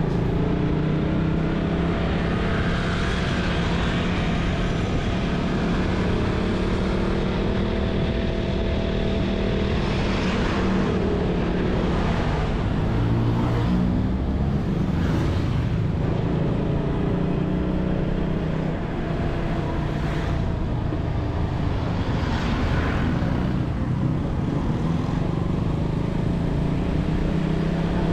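Motorcycle engine running steadily while riding through city streets, its pitch rising and falling with changes in speed, with several brief rushing noises of traffic going by.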